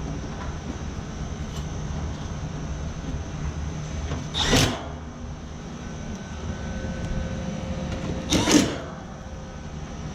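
Outdoor air-conditioning condenser units running with a steady low hum. Two brief, loud noisy swishes come about four and a half and eight and a half seconds in.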